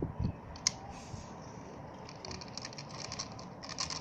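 Steel BBs being handled and loaded into a 4.5 mm BB gun: a soft thump and a single click, then a run of faint, quick metallic ticks and rattles that grows busier near the end.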